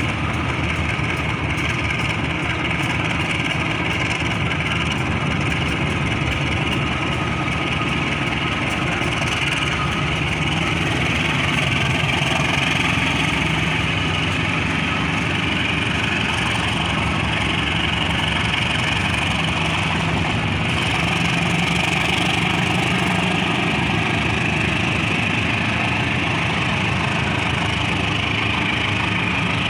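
Locomotive-hauled passenger train rolling past on the rails: steady noise of the coaches' wheels on the track, with the diesel locomotive's engine running as it pulls the train away.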